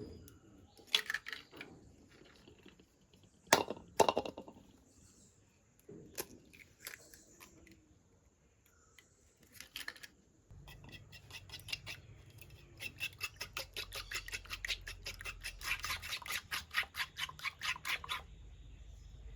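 Kitchen utensils at work: a few separate knocks and clatters, then a run of quick, even strokes, about five a second, lasting several seconds under a low steady hum.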